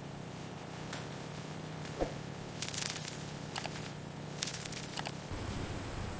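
Steady low machine hum with scattered clicks and rustles of handling. The hum drops lower about five seconds in.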